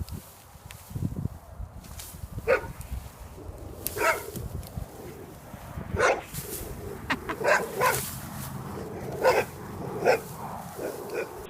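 A dog barking in short single barks, a second or two apart, more closely spaced in the second half.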